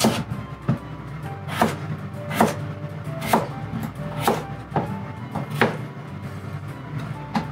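Kitchen knife chopping potatoes into large chunks. Each cut ends in a sharp knock of the blade on the board, about once a second and unevenly spaced.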